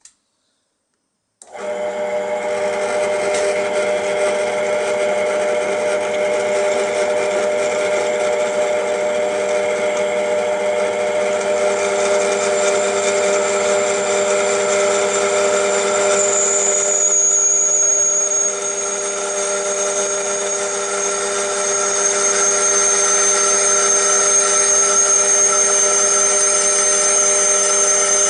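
Drill press motor starts about a second and a half in and runs steadily as a twist bit drills into a small brass part, with a hum of several steady tones. About halfway a thin, high whine joins in and holds until just before the end.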